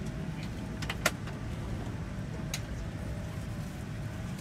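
Steady low hum of a Boeing 787-9 airliner cabin, with a few sharp clicks, the loudest about a second in.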